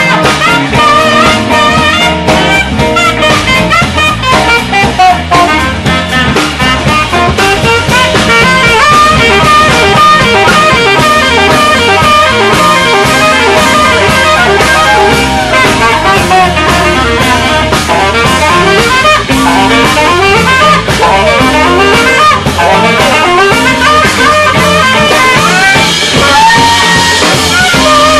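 Live band playing: a saxophone plays lead lines over electric guitar, bass guitar and a drum kit beating a steady rhythm.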